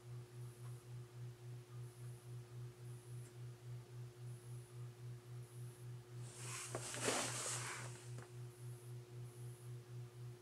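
Toaster oven running with its heating elements on: a steady low electrical hum that swells and fades about two and a half times a second, over a fainter steady higher tone. About six seconds in, a brief crackling hiss rises and dies away within two seconds.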